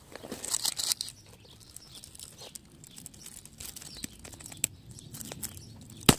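Forsythia branches rustling and crackling as they are worked through and pulled inside the dense shrub, with scattered small twig clicks and one sharp snap near the end.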